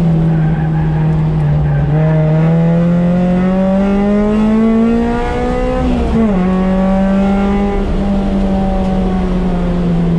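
Car engine heard from inside the cabin while the car is driven on track. Its pitch climbs steadily for a few seconds, drops sharply about six seconds in, then holds fairly steady.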